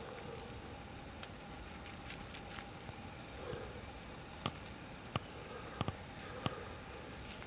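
Steady outdoor background noise, broken by a handful of short sharp knocks or clicks in the second half, two of them close together.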